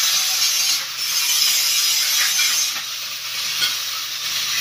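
TIG welding arc hissing steadily on a square metal tube, with a low electrical hum underneath.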